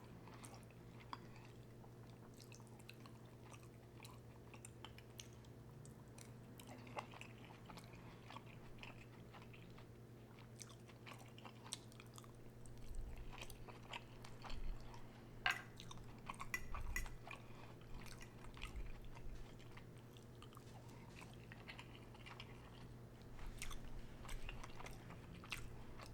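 Close-miked chewing and mouth sounds of someone eating mac and cheese: many small wet clicks and smacks, busier and louder in the second half, over a steady low hum.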